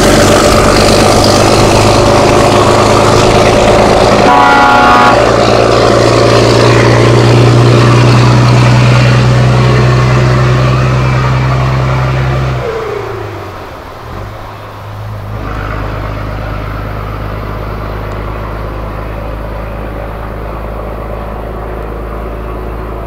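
Straight-piped DAF six-cylinder diesel truck passing by close and loud, its open exhaust crackling, with a short horn-like toot about four seconds in. About thirteen seconds in, the engine sound drops away with a falling pitch as the truck moves off, leaving a quieter steady low hum.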